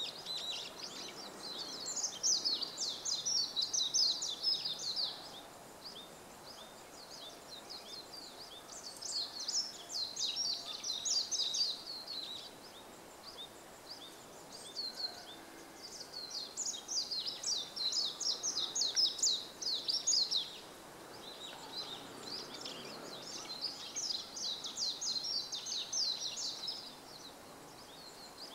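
Japanese white-eye singing: four long, rapid, high-pitched twittering song phrases, separated by pauses of a few seconds.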